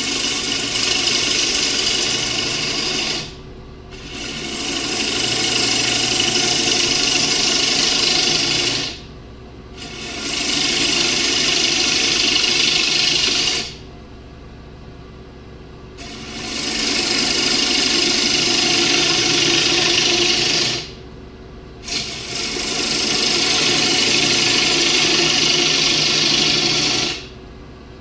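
A turning tool cutting rough-sawn walnut spinning on a Powermatic lathe: five long cuts, each a few seconds of steady hiss, with short breaks where the tool lifts off and only the lathe's steady hum is left.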